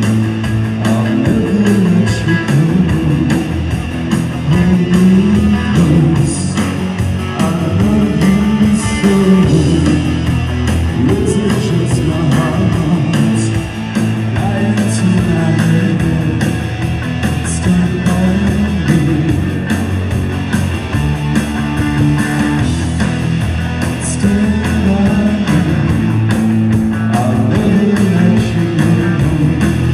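Live rock band playing loud and without a break: electric guitars, bass guitar and drums through amplifiers.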